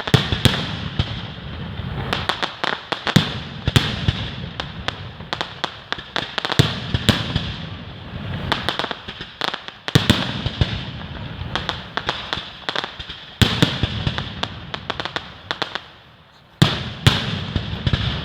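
Fireworks going off: a rapid, irregular run of sharp bangs and crackles, with a short lull near the end broken by another loud bang.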